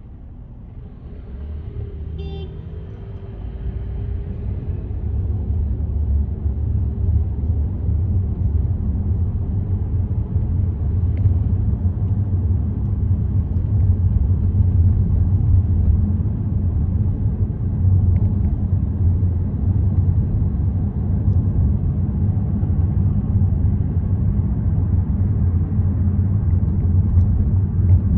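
Car driving on a city road: low engine and tyre rumble that grows louder over the first few seconds as the car gathers speed, then holds steady.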